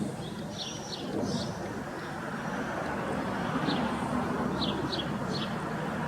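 Steady low rumbling background noise outdoors, with short high chirps of small birds breaking in several times, in a cluster near the start and again a few seconds later.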